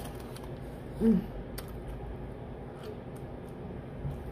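Chewing a soft fish sandwich, with a few mouth clicks over a steady low background, and a short hummed 'mm' about a second in.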